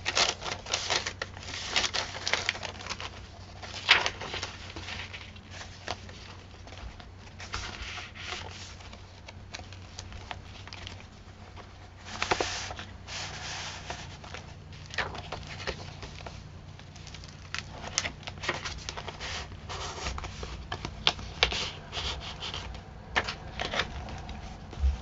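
Paper pages of a handmade journal being turned and handled: repeated rustles, flaps and light taps as pages, flip-outs and tucks are moved, over a faint steady low hum.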